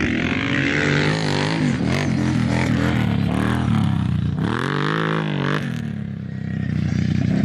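Quad bike engine revving hard as it races over the dirt track, its pitch climbing and falling again and again, with a big rev swell about four seconds in as it goes over a jump.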